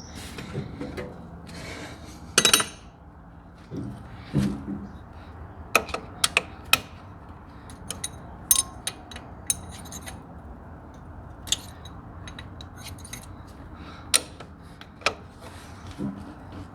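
Hand tools clinking and tapping on the engine's metal while working the stuck injectors of a skid steer's three-cylinder diesel loose: scattered sharp metallic clicks at irregular intervals, the loudest about two and a half seconds in.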